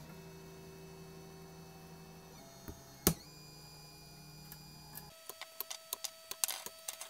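A 3D printer running, its stepper motors humming and whining at steady pitches that shift abruptly as the print head changes moves. A single sharp click comes about three seconds in. In the last two seconds the hum gives way to one steady tone with a rapid run of irregular clicks and ticks.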